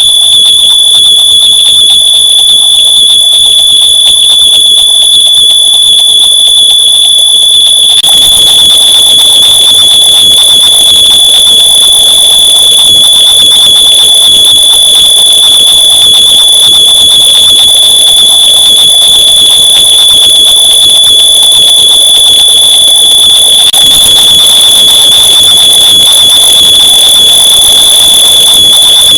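Smoke alarm tone, copied and stacked over itself many times into one unbroken, very loud, high-pitched tone. A rough hiss beneath it grows louder about eight seconds in.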